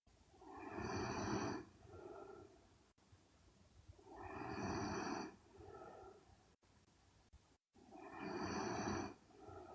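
A young woman snoring in her sleep: three snores about four seconds apart, each followed by a shorter, softer breath.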